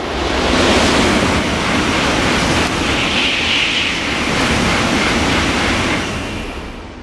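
N700 series Shinkansen passing straight through the station at high speed: a loud rush of air and wheel-on-rail noise that swells as the nose arrives, holds steady for about five seconds as the cars go by, then dies away near the end.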